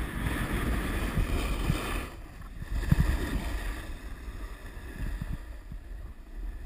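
Snowboard sliding and scraping over hard-packed snow, with wind rumbling on the microphone. It is louder and hissier for the first two seconds, then quieter, with a few low thumps about three seconds in.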